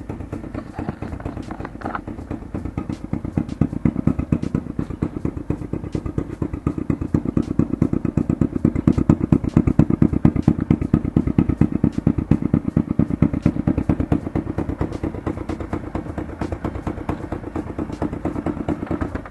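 Honda 125cc single-cylinder, four-stroke, air-cooled motorcycle engine running through an open exhaust pipe with no silencer fitted, a fast, even chug of exhaust pulses. It grows louder through the middle and eases back towards the end.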